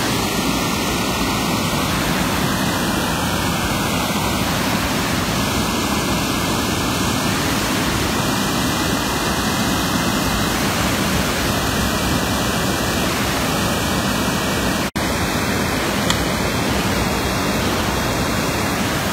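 Steady rushing roar of a fast, muddy flash-flood torrent, with a brief dropout about fifteen seconds in.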